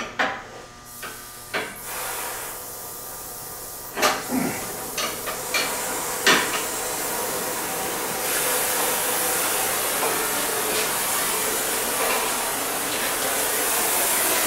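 Hand torch hissing steadily as it heats seized catalytic converter bolts, growing louder about two seconds in and again about eight seconds in. A few sharp metal clinks of tools sound in the first seven seconds.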